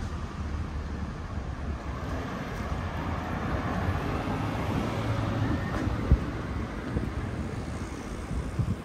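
Road traffic passing on a city street, one car going by close and swelling in the middle, with wind rumbling on the microphone and a single sharp thump about six seconds in.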